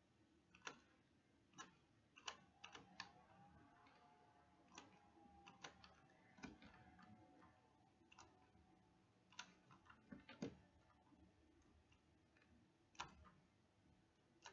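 Faint, irregular computer mouse clicks, about twenty of them, spaced unevenly a fraction of a second to a couple of seconds apart.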